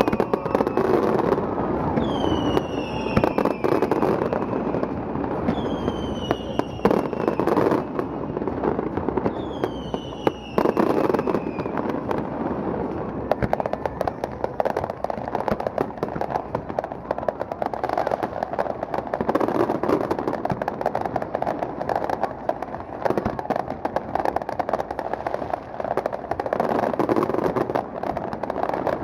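Aerial fireworks going off: four falling whistles early on, sharp bangs of bursting shells, then a dense run of crackling that continues to the end.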